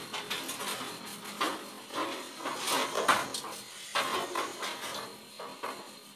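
Irregular rustling, scraping and light knocks of stiff insulated cables being handled and pushed around inside a steel electrical panel, fading toward the end.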